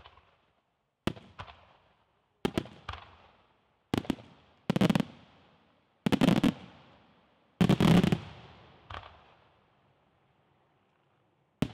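Aerial firework shells bursting in a string of about ten sharp bangs, each trailing off in a rumbling echo. The loudest come in close clusters about six to eight seconds in, then there is a pause before one more bang at the end.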